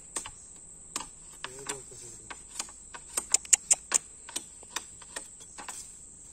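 Irregular sharp clicks and taps, several in quick succession about three and a half seconds in, over a steady high-pitched insect buzz.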